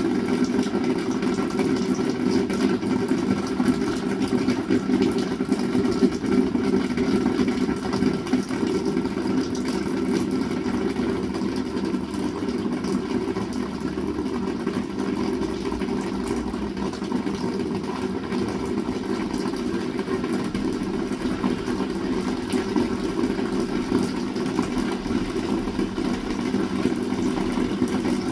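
Heavy rain falling steadily and loudly, a dense even patter with a strong low rumble underneath.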